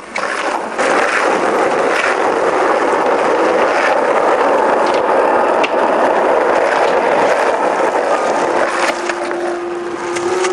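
Skateboard wheels rolling over rough asphalt: a steady, loud rolling noise, with a few sharp clacks of the board along the way.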